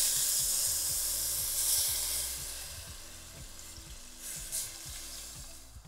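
Water poured from an enamel mug into a hot stockpot of chicken bones and vegetables, splashing and sizzling as it hits the pot. The pour is loudest at first and fades away over the first few seconds, with a couple of soft knocks later on.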